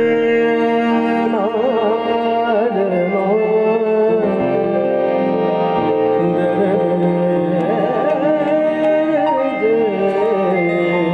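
Live ghazal music: sustained harmonium and keyboard chords, joined from about a second and a half in by a man singing an ornamented, wavering melody.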